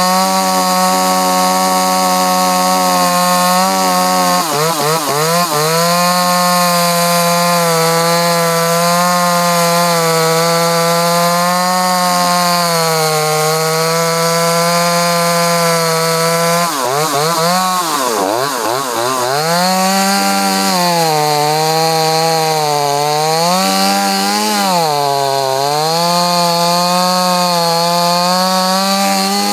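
Two-stroke chainsaw running at high revs while cutting tree limbs. Its pitch sags and recovers as the chain loads in the wood, dropping briefly about four seconds in, dropping deeply a little past halfway, then wavering several times near the end.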